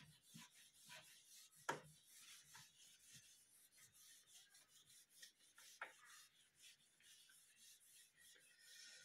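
Faint rubbing of a whiteboard eraser wiping marker writing off a whiteboard, in quick repeated strokes, with a light tap near two seconds in.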